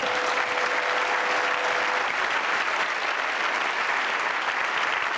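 Studio audience applauding, thinning slightly near the end. A thin, steady held tone sounds faintly under the clapping for the first two seconds.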